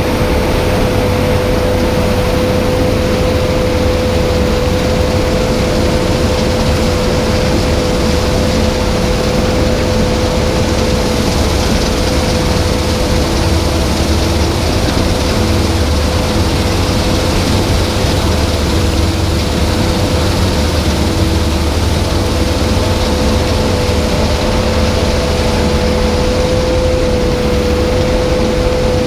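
Claas Lexion 650 combine harvester running steadily, a constant low engine drone with a steady whine over it.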